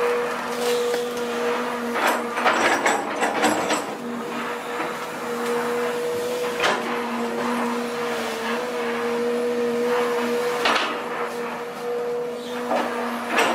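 Long-reach excavator running with a steady whine, broken by bursts of knocking and clatter about two seconds in, near seven and eleven seconds, and again at the end.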